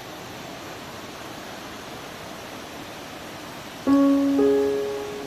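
Steady rushing noise of flowing water, then about four seconds in music starts: a low ringing note struck suddenly and a higher note half a second later, both sustaining and slowly fading.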